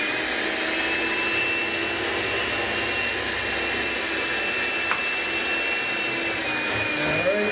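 Food Network stand mixer running steadily on a low setting (3 of 10), its beaters churning brownie batter in a glass bowl, with a constant whine.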